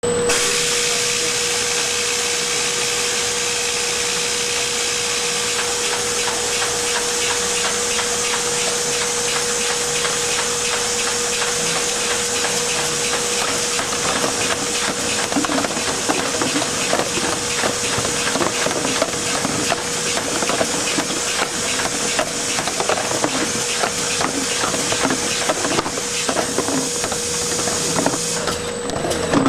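Overcapper and conveyor line running with a steady hiss and a steady hum. From about halfway, the capped plastic containers click and knock along the conveyor as they pass under the cap-top labeler.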